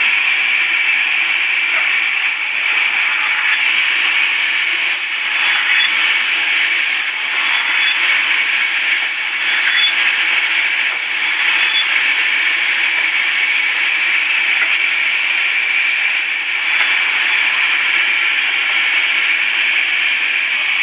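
Sawmill saw cutting through wood, a steady loud rasping noise that changes little throughout.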